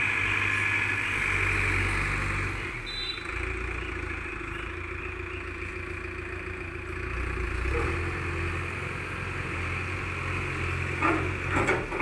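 Diesel engine of an Escorts Hydra 15 pick-and-carry crane running steadily at idle, its low note shifting slightly a couple of times.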